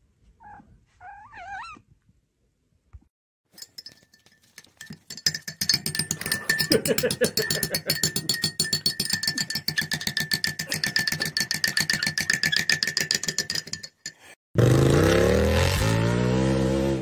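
A few short squeaky whines from a furry pet being stroked. Then a spoon clinks rapidly and steadily against a ceramic mug, stirred by a monk parakeet, for about ten seconds. Near the end a small dirt bike engine revs loudly, its pitch dipping and then climbing.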